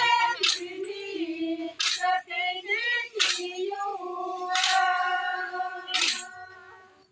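A group of women singing a Santali Sohrai song, with a sharp struck beat about every second and a half.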